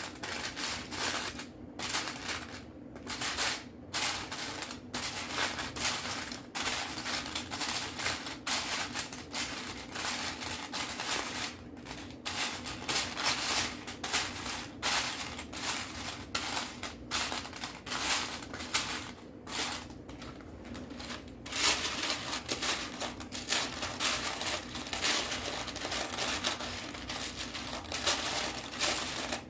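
Hands rummaging through a pile of loose Lego pieces, small plastic parts clicking and clattering continuously, with a denser rattle in the later part.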